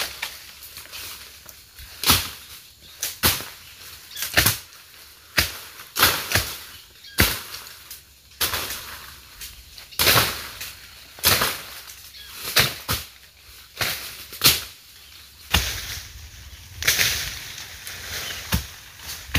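A blade chopping at wood or brush: sharp, uneven strokes at roughly one a second, some coming in quick pairs.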